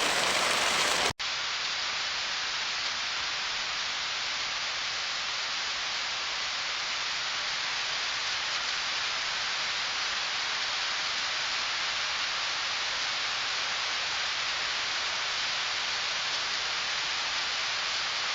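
Rain hiss that cuts off abruptly about a second in and gives way to a different, very even hiss of steady heavy rain with no separate drops standing out.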